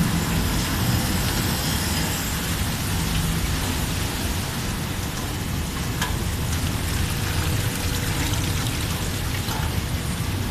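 Fabric rope washing machine running: steady splashing and rushing of water over a constant low machine hum.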